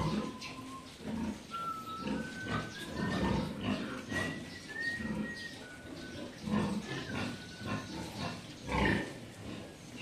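A nursing sow grunting in short, low, rhythmic grunts, one to two a second, while her piglets suckle: the steady nursing grunt that goes with milk let-down.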